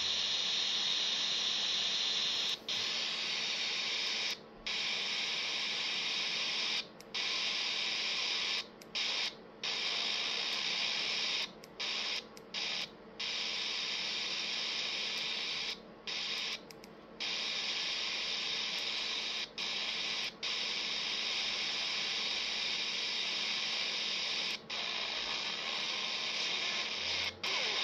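Quansheng UV-K5 handheld radio hissing with receiver static through its speaker, squelch open and no signal coming in while it is tuned for air band traffic. The hiss cuts out briefly about a dozen times at uneven moments, with a faint low steady hum underneath.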